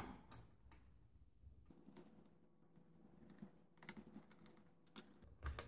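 Faint, scattered light clicks of a small hand screwdriver tightening the cooler screws on the back of a graphics card, over near silence.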